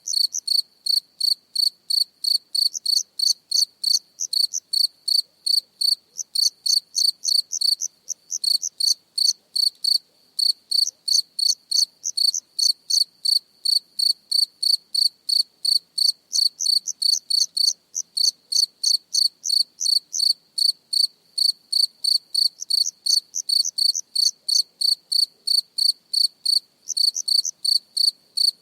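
A single cricket chirping close up: a steady run of short, high-pitched chirps, about three to four a second, broken by a few brief pauses.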